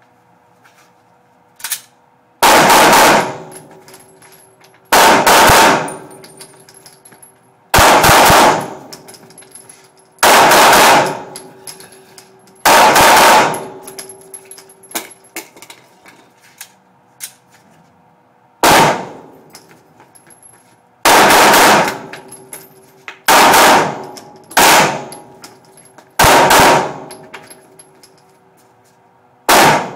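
Glock 19 9mm pistol fired single shots at a slow, deliberate pace, about eleven shots mostly two to three seconds apart. Each sharp report is followed by a ringing decay. Two pairs of shots come closer together, near the middle and at the very end.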